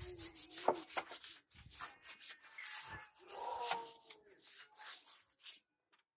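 Microfibre cloth rubbing over the engine's top cover and surrounding parts in quick repeated wiping strokes, wiping off degreaser. The strokes stop shortly before the end.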